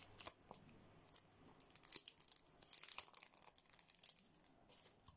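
Faint, irregular crinkling and crackling of a thin plastic packet of nail stickers being handled and pulled open.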